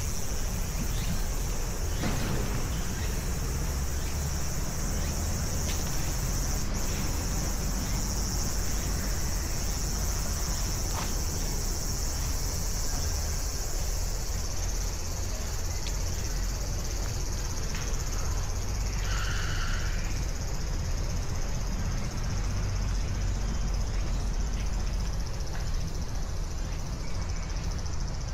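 A steady, high-pitched insect chorus, such as crickets, over a low rumble, with a brief mid-pitched call about two-thirds of the way through.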